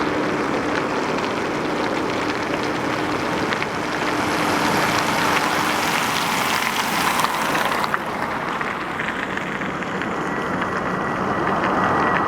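Jet engines of a Boeing 747-400 freighter, a steady roar with hiss. The high hiss drops away sharply about eight seconds in, and a steady high whine comes in near the end.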